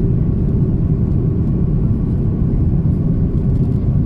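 Steady low rumble of an airliner cabin in flight, even in level throughout.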